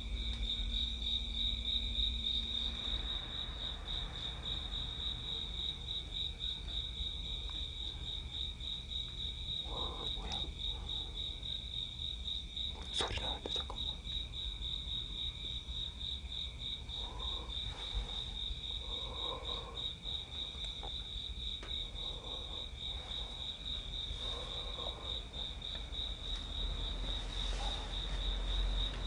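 Crickets chirping in a steady, unbroken high trill. A single sharp click comes about halfway through.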